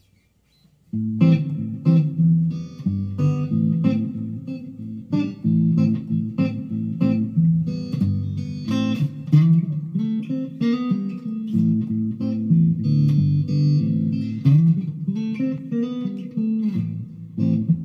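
Monoprice Indio Cali Classic Strat-copy electric guitar on its neck pickup, played through a small practice amp: a run of picked notes starting about a second in. The tone is still pretty bright for the neck pickup, which is meant to be the darkest in the set.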